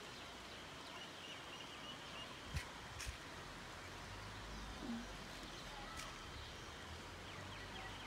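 Faint outdoor rural ambience: a steady hiss with faint distant bird chirps, and a few sharp clicks about two and a half, three and six seconds in.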